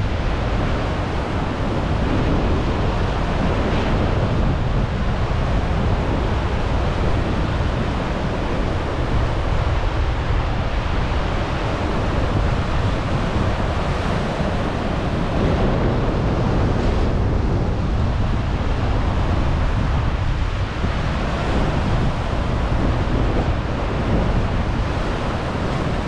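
Ocean surf washing and breaking over rocks along the shore, a steady rushing wash, with wind rumbling on the microphone.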